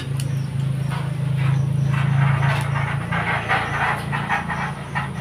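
A steady low motor hum, with irregular crackly noises over it.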